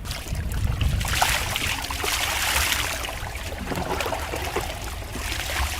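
Large batch of pork frying in hot oil in a big cooking vessel: a crackling sizzle that swells up about a second in and holds, over a low rumble.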